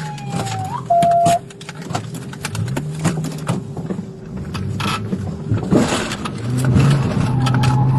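A police car's siren wail sliding down in pitch and stopping just under a second in, followed by a loud steady beep lasting about half a second. Scattered clicks follow, then a brief burst of noise near six seconds, after which a low engine hum builds and holds steady.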